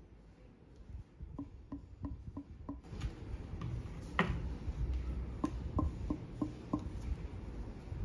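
Table tennis blades knocked with a knuckle, a run of short wooden knocks about three a second, each with a brief ringing tone, and one louder knock about four seconds in. This is a blade sound test, comparing the pitch of each blade's ring.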